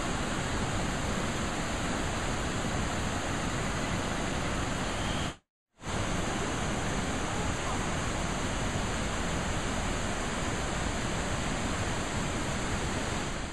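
Fast mountain river rushing over rocks and rapids: a steady, loud noise that cuts out for a moment about five and a half seconds in, then carries on as before.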